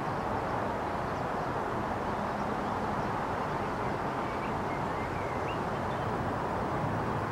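Steady outdoor background rumble, with a few faint high chirps about four to five seconds in.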